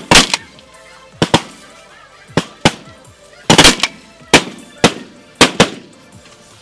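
Volley of shotgun blasts from several hunters firing at snow geese: about a dozen sharp shots in quick, uneven succession, some overlapping, each with a short echo.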